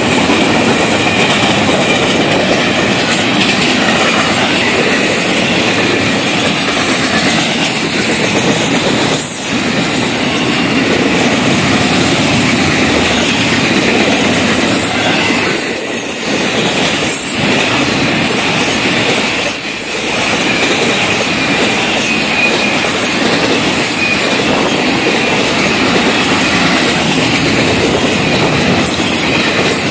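Double-stack intermodal container well cars of a Florida East Coast Railway freight train rolling past close by: a loud, steady rumble of steel wheels on the rails with clickety-clack and a faint high wheel squeal. The noise dips briefly twice about two-thirds of the way through.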